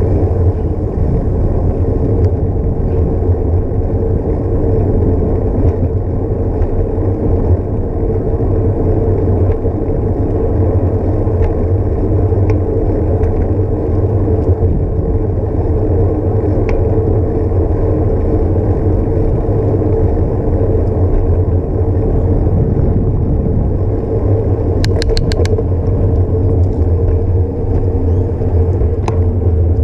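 Steady rumble of wind buffeting and tyre noise picked up by a bicycle-mounted action camera while riding along a paved path. A short run of sharp clicks comes near the end.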